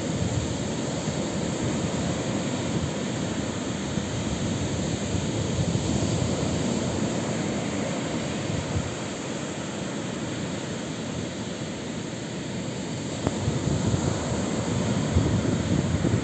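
Baltic Sea surf breaking and washing onto a sandy beach: a steady rushing roar that swells a little in the last few seconds.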